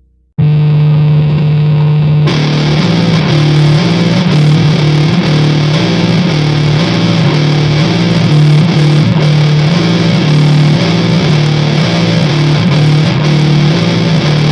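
Goregrind / gore noise music: a heavily distorted guitar riff repeating a few low notes starts after a brief gap, and a dense wall of distorted noise joins it about two seconds in.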